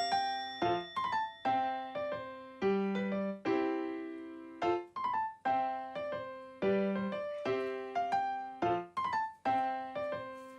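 Background music: a light piano tune with notes struck in a steady, repeating pattern, each note ringing and fading.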